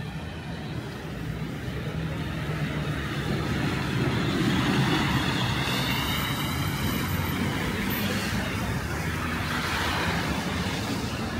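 City road traffic, with a motor vehicle's engine running close by; it grows louder toward the middle and then holds steady.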